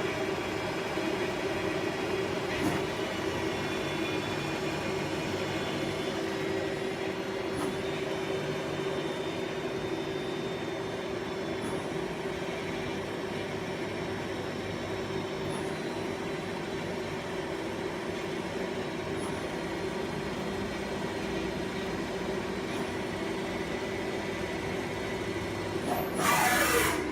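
2008 Okuma Heritage ES-L8II CNC lathe running a program: a steady, smooth machine hum with a held tone. Near the end comes a short, loud hiss of air.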